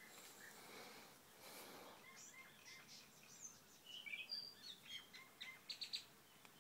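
Small birds chirping faintly, with scattered short high calls and quick trills that grow busier and louder in the second half.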